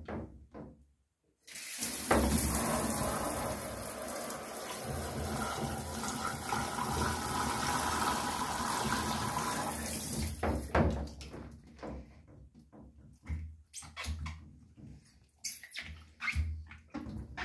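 Handheld shower head spraying water into a sneaker on a shower tray, a steady rush that starts about two seconds in and stops about ten seconds in. After that come short, irregular wet knocks and rubs as a foot works into the soaked shoe.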